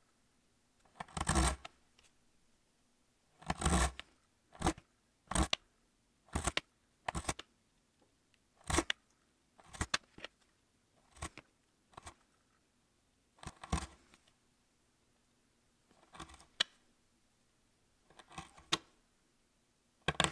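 A blade slicing through leather: a series of short, crisp cuts, one every second or so at irregular intervals, as the edge is trimmed piece by piece around a template.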